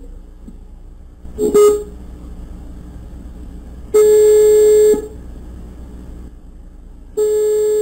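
Telephone ringback tone of an outgoing call, heard while waiting for the other end to pick up: a steady mid-pitched tone sounding for about a second, then again about two seconds later near the end, with a short blip of the same tone about a second and a half in.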